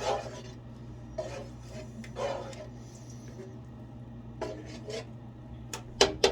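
Dishes and cutlery being handled: soft scrapes and rubs, then a few sharp clinks near the end. A low steady hum runs underneath.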